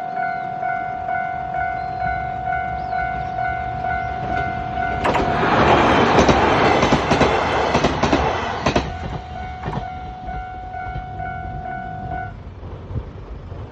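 A Japanese railway level-crossing alarm rings its steady, rhythmic warning bell while a train passes over the crossing. The train's rumble and wheel clatter are loudest from about five to nine seconds in. The bell stops about twelve seconds in, once the train has cleared.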